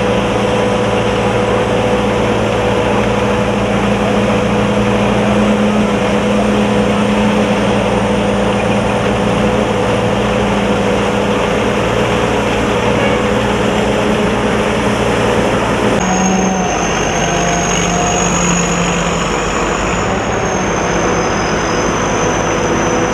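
Sakpattana corn combine harvester running, a loud steady engine and machinery drone that shifts in tone about two-thirds of the way through.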